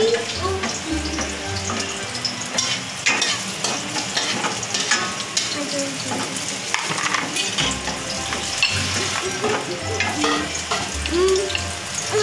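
Food sizzling as it fries in a wok, stirred with a wooden spatula that scrapes and clicks against the pan again and again.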